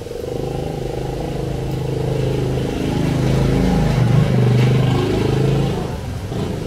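A motor vehicle's engine running close by: a steady low hum that grows louder toward the middle, shifts in pitch about four seconds in, then fades away near the end.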